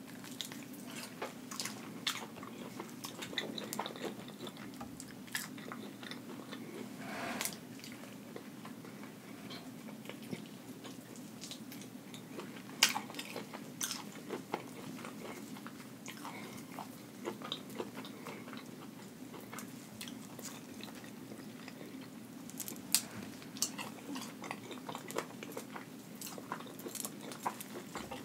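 Close-miked chewing and biting of crunchy Flamin' Hot Cheeto-crusted fried shrimp and chicken: wet mouth sounds and scattered crisp crunches and clicks, the sharpest about 13 and 23 seconds in, over a steady low hum.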